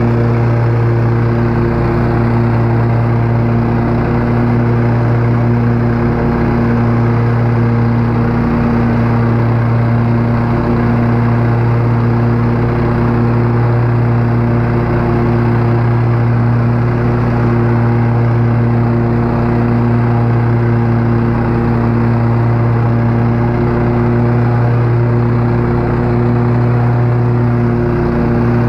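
Lawn mower engine running steadily at one constant speed, with no change in pitch.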